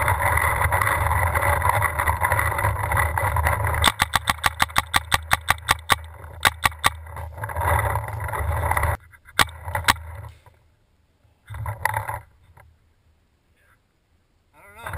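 Paintball marker firing a rapid string of shots, about seven a second for some two seconds starting about four seconds in, followed by a few more shots and then single shots. Before and between the shots, a steady rushing noise of movement on the helmet camera.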